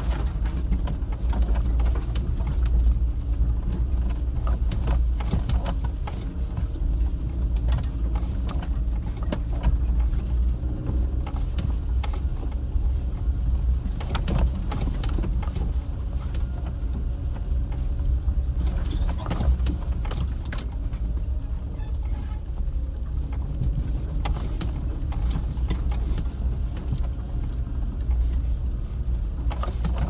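A vehicle driving slowly over a rough dirt track: a steady low engine rumble, with frequent knocks and rattles from the bumps.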